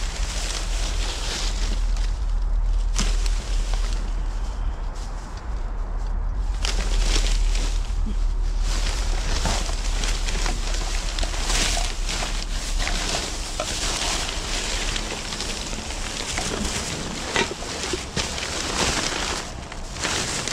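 Plastic trash bags crinkling and rustling as gloved hands dig through them, with many small crackles. A low rumble lies underneath for roughly the first two-thirds.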